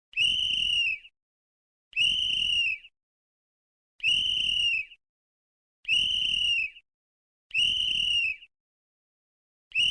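Sports whistle blown in short, even blasts, each just under a second long, repeated about every two seconds: five full blasts, with a sixth starting near the end. Each blast is a single high, steady shrill tone.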